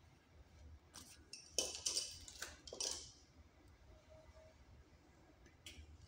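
Faint snips, scrapes and clicks of pliers working on the electrical wires of a wall outlet, bunched between about one and three seconds in, with one more light click near the end.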